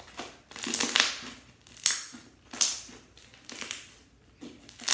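Pink fluffy slime being squeezed and kneaded by hand, making a crackly, squelchy squish about once a second.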